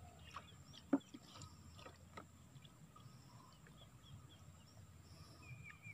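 Quiet outdoor background with a few small clicks and taps as a fishing line is handled on a boat, the sharpest about a second in. Faint high chirps near the end.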